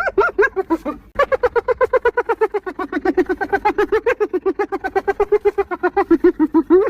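Spotted hyena giggling: a long, rapid string of high-pitched yelping notes, about eight a second, broken briefly about a second in and rising in pitch near the end.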